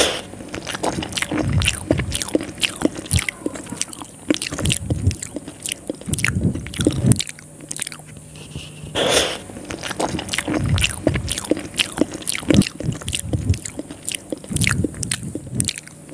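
Close-miked eating of soft rice noodles in coconut sauce: wet chewing with many small lip smacks and mouth clicks, and a longer slurping sound at the start and again about nine seconds in as mouthfuls of noodles are drawn in.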